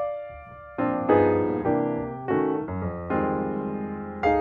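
Background piano music with chords struck in turn. One note dies away, and the playing starts again just under a second in.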